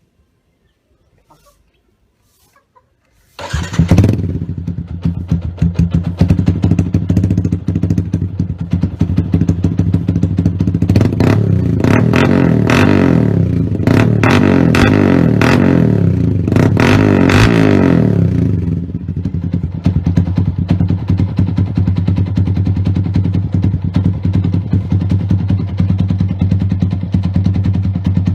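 Yamaha Sniper 150's single-cylinder four-stroke engine, fitted with an aftermarket racing muffler, starts suddenly about three and a half seconds in and idles. Between about ten and eighteen seconds it is revved in several rising and falling blips. It then settles back to idle.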